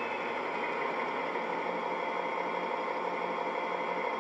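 Class 41 (D600) model diesel locomotive's DCC sound decoder playing a steady engine idle through a small speaker; the sound file is built from a German locomotive with the same engine.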